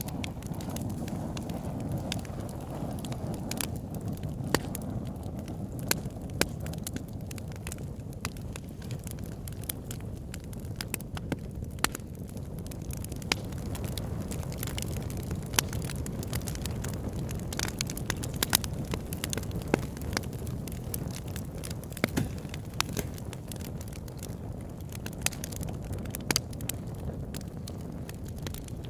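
Campfire burning: a steady low rush of flames, broken by frequent sharp crackles and pops at irregular intervals.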